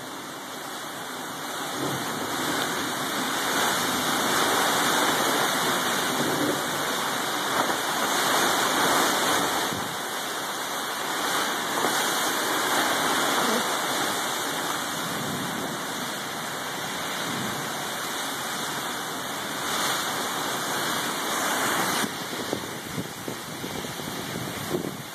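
Heavy rain and strong wind in a thunderstorm: a steady rushing hiss that swells and eases every few seconds.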